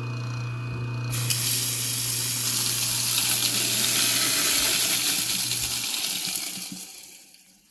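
Newly installed InSinkErator garbage disposal on its first test run, its motor running with a steady hum through an open drain with no splash guard. Tap water pours into the drain from about a second in. The motor shuts off about six seconds in, and the water stops near the end.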